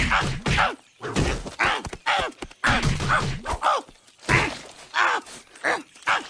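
Wordless cartoon-character vocal noises: a quick string of short voiced sounds, about a dozen, with the pitch sliding up and down.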